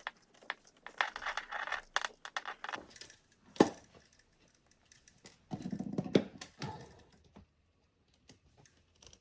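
Handling noise from stiff electrical wires and a plastic wire nut being twisted together: irregular rustling, scraping and small clicks, with one sharp click about three and a half seconds in.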